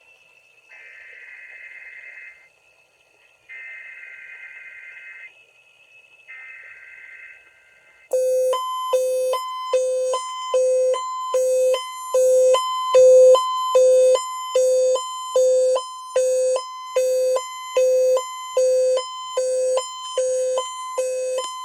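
Emergency Alert System tones over broadcast radio. First come three short bursts of warbling digital data tones, the EAS header sent three times. Then, about eight seconds in, a loud evenly pulsing beep starts: the alert's attention signal.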